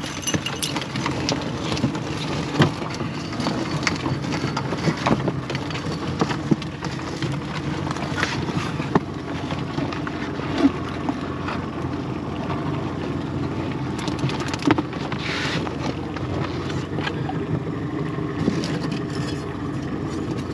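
Small boat's outboard motor running steadily, with scattered knocks and clicks throughout.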